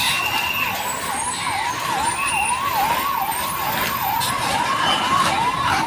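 Electronic siren warbling steadily, its pitch swooping up and down about three times a second, over the running of bus engines.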